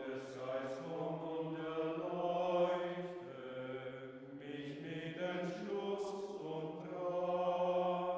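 Male voices singing a slow chant with long held notes.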